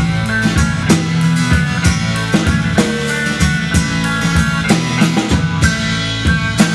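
Live country band playing an instrumental passage with no singing: a drum kit keeping a steady beat under electric bass, acoustic guitar and electric guitar.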